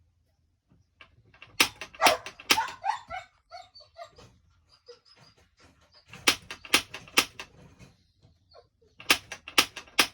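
Spark igniter on a Norcold RV fridge's gas burner clicking in three sets of three quick snaps, about half a second apart. The burner does not light: the gas line has likely not been primed.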